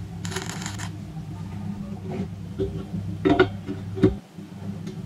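A stick-welding arc strikes a tack weld on steel angle iron, a brief hiss of about half a second just after the start. Several metallic clinks and knocks follow as the steel angle pieces are shifted on the steel welding table, the loudest in the second half, over a steady low hum.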